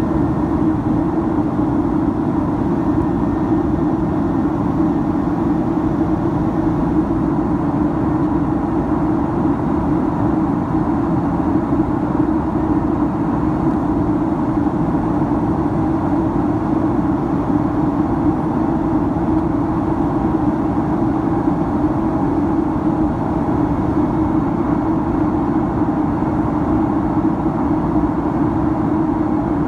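Steady in-flight cabin noise of a Boeing 767-300ER heard from a window seat beside the wing: the drone of the jet engines and airflow, a constant low hum with a fainter higher tone.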